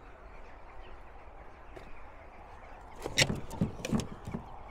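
Steady outdoor background hiss, then about three seconds in a short run of footsteps, knocks and clatter as the Tesla Supercharger's charging cable and connector are lifted from the stall.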